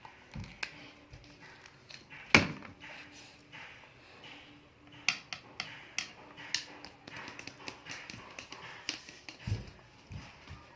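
Light taps and clicks from a small plastic glitter container being tapped and shaken over the slime bowl, with one sharper click about two seconds in and a quicker run of clicks later; a faint steady hum runs underneath.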